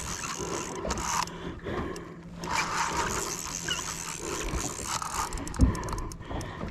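Fishing reel drag buzzing in spurts as a hooked fish takes line, a fish the angler later takes for a big ray. There is one sharp knock near the end.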